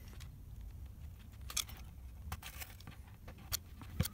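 Utility knife cutting small notches out of PVC push-on rubber trim on a door edge to recess a hinge: a few faint, scattered clicks and snicks, the clearest about a second and a half in and again near the end.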